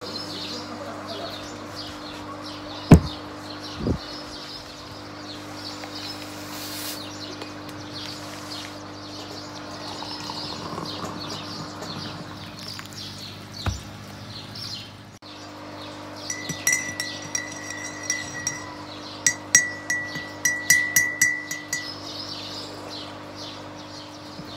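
Steady low hum with faint bird chirps. There is a sharp knock about three seconds in and another a second later, and water pours from a kettle into a porcelain mug midway. Near the end a spoon clinks repeatedly against the porcelain mug, which rings each time.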